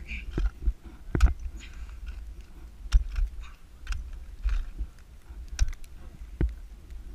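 Ice axe picks striking and biting into a glacier ice wall: about five sharp, irregularly spaced strikes with lighter ticks and crunches of ice between them, over a low rumble.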